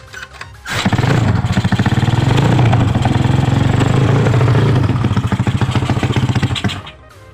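Yamaha Mio Soul scooter's single-cylinder engine, bored up to 200cc with a Tiger piston, running loudly and steadily for about six seconds, then cutting off sharply.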